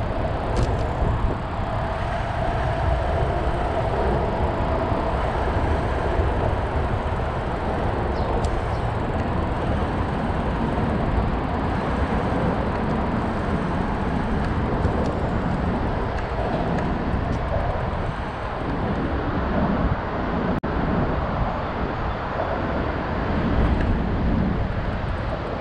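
Steady wind rush and low road rumble on the microphone while riding along a street.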